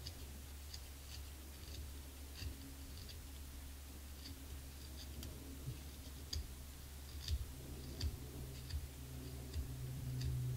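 A reed knife takes small chips off the tip of a cane clarinet reed: short, irregular clicks and scrapes, a few per second. Under them runs a low steady hum that grows louder near the end.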